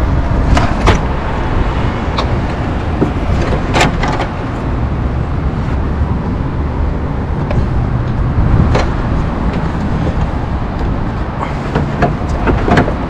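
Hand tools clicking and clinking as they are picked out of a socket set and tool pile in a car boot, with several sharp knocks. A loud, steady low rumble runs underneath.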